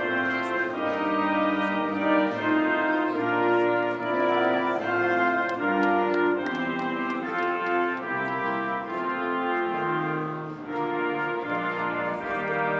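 A national anthem played by an orchestra with prominent brass, in slow sustained notes that change step by step.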